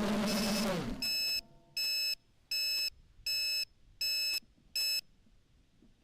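A held, ringing chord dies away in the first second, then an electronic beeper sounds six even beeps, about four every three seconds, and stops.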